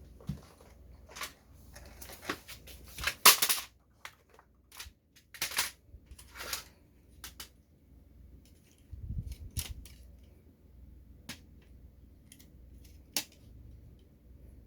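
Hands handling a plastic toy model and its packaging: irregular clicks, knocks and short rustles, the loudest about three seconds in, with a dull low thump about nine seconds in.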